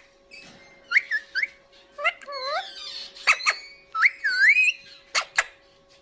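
Alexandrine parakeet giving several short whistled calls that swoop up and down, with sharp clicks between them and a faint steady hum underneath.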